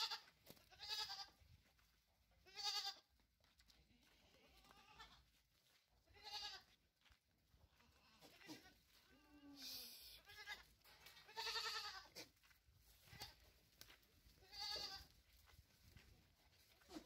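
Osmanabadi goats bleating over and over, about ten quavering bleats a second or two apart, some louder and nearer than others.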